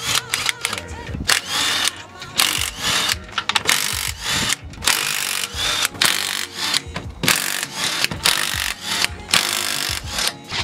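Impact wrench working the wheel's lug bolts in a run of short bursts, its motor spinning up and down between each, loosening them to take the wheel off.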